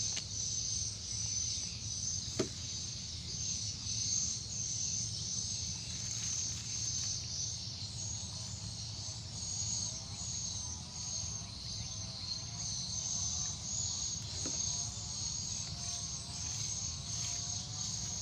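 Swamp insect chorus: a steady, high-pitched chirring that pulses evenly, with a single sharp click a couple of seconds in. From about halfway, a lower call of short arched notes joins and repeats over and over.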